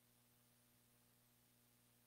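Near silence during silent prayer: only a faint, steady hum and hiss.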